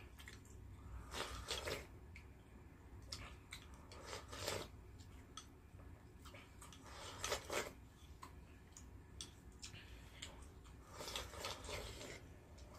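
Faint eating sounds: chopsticks scraping and clicking against a ceramic bowl held to the mouth as rice in tea is shovelled in, with chewing, in short bursts a few seconds apart.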